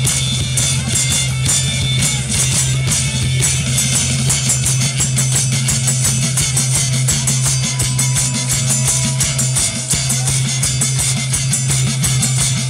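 Live band playing an instrumental break between sung verses of a Ukrainian folk song: plucked guitar over a steady drum beat, with no singing.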